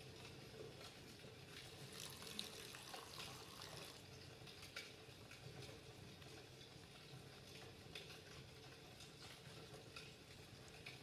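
Near silence: faint room tone with a few small scattered ticks and rustles.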